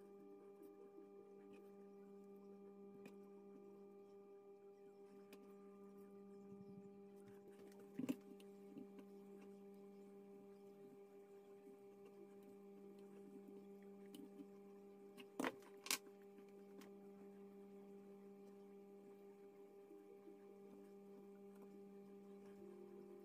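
Faint steady hum, with a sharp click about eight seconds in and two more close together about fifteen seconds in.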